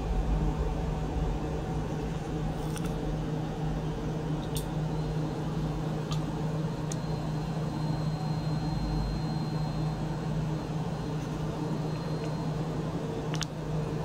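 Small electric circulation pump running steadily, its motor giving a constant low hum as it drives water through the tubing of an ultrasonic tank, with a few faint ticks.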